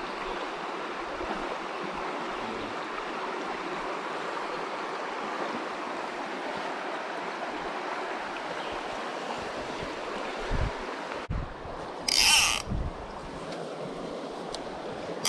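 Steady rush of a trout stream's flowing water. Near the end, two short, loud bursts of higher-pitched noise cut in, about three seconds apart.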